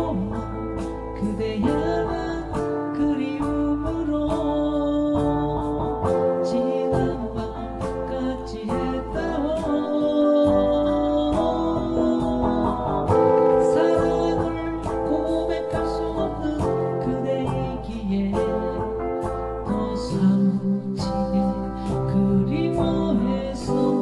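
Background music: a song with guitar.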